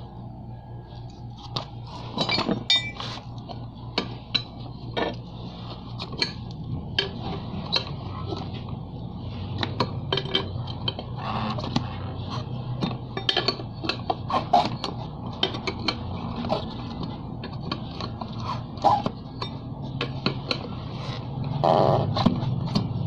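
Steel tire lever clinking and scraping against a scooter's wheel rim as the tire bead is pried back onto the rim, in many irregular sharp taps.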